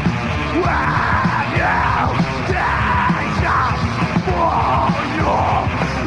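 Death metal band playing live: heavily distorted guitars, bass and drums, with growled vocal lines coming in about a second in and repeating in short phrases.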